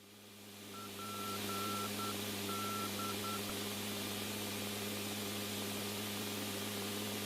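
Open radio channel hiss, swelling in over the first couple of seconds and then holding steady over a low hum. For the first few seconds a string of about seven short electronic beeps on one pitch sounds over it, some longer than others.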